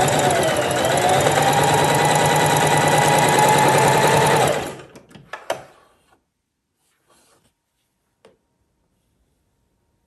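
Domestic sewing machine stitching with a twin needle: it runs steadily at speed for about four and a half seconds, then slows and stops. A few faint clicks follow.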